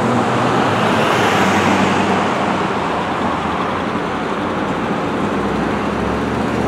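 Street traffic: cars and trucks driving past, a steady mix of engine hum and tyre noise.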